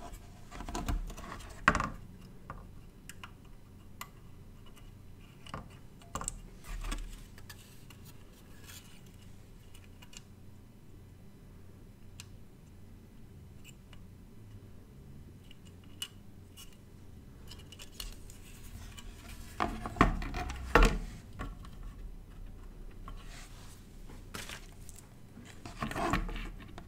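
Small handling sounds of circuit-board work on a wooden bench: scattered light clicks and taps of a printed circuit board and an axial capacitor being handled, with a few louder knocks about two thirds of the way through and again near the end.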